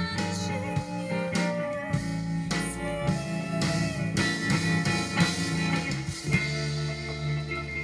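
Music with guitar and drums played through a Revox B77 Mark II reel-to-reel tape deck running at 7.5 inches per second, heard over loudspeakers; it sounds crisp.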